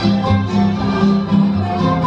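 Music for a Filipino dance performance: a melody over a bass line that moves in short repeated notes.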